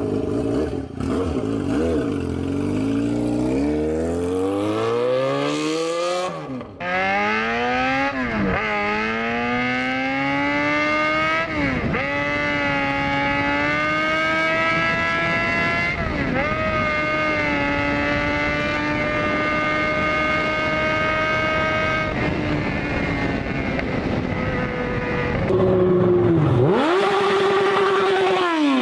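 Yamaha XJ6 inline-four motorcycle engine accelerating hard: the pitch climbs and drops back at each upshift, several times in the first half. It then holds a steady high note, and near the end it sweeps up and falls away quickly.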